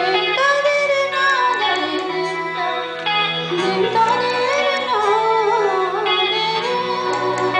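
Live band music: a voice singing a wavering melody over electric guitar, with sustained low notes underneath.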